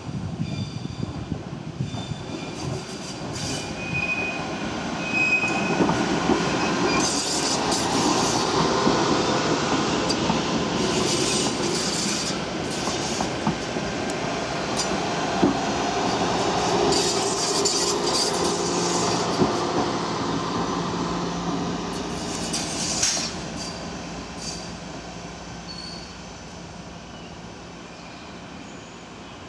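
Vivarail Class 230 diesel-electric train, converted from London Underground D78 stock, running past on the rails with repeated high-pitched wheel squeals. The sound builds as the train comes by, stays loud through the middle and fades away over the last few seconds, leaving a steady low engine hum.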